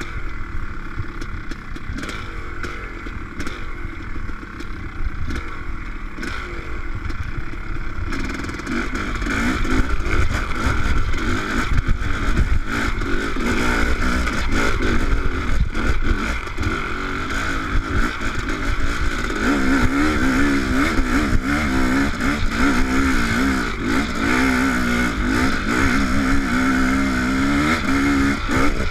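Honda CR500 two-stroke single-cylinder dirt bike engine running under riding load, the throttle opening and closing so the pitch keeps rising and falling. It gets louder about a third of the way in.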